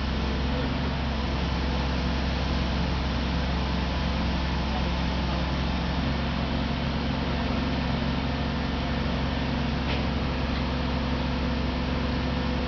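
Mobile crane's engine running steadily, a constant low hum while it holds the load.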